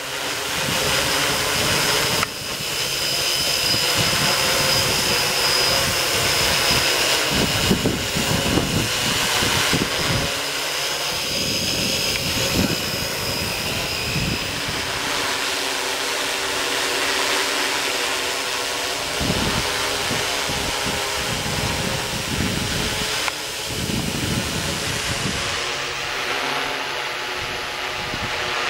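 Six electric motors and propellers of a Droidworx AD-6 hexacopter flying close overhead: a steady buzzing whine that rises and falls a little with throttle. Low gusty rumbles of air hit the microphone now and then.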